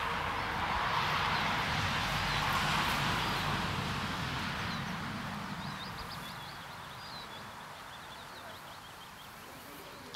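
Outdoor background: a broad rushing noise that slowly fades after about four seconds, with a few short bird chirps about halfway through.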